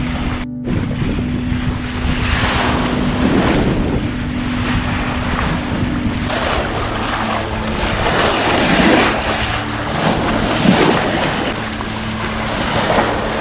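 Sailboat under way under engine: the engine's steady hum runs under the rush and splash of the bow wave and waves along the hull, which swell in surges, with wind buffeting the microphone.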